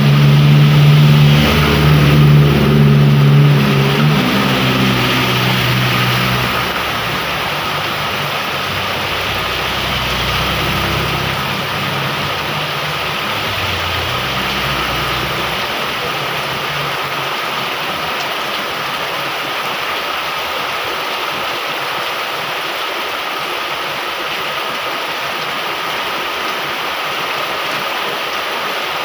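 Heavy rain falling steadily in a downpour. For the first six seconds or so a motor vehicle's engine runs loudly underneath it, then fades away, leaving the rain alone.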